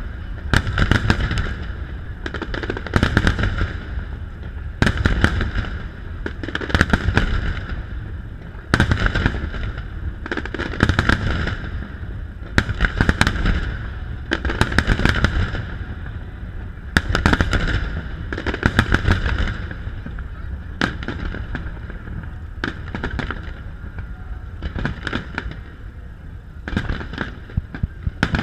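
A fireworks display of aerial shells bursting in quick succession, deep booms each followed by crackling, a fresh volley every second or two.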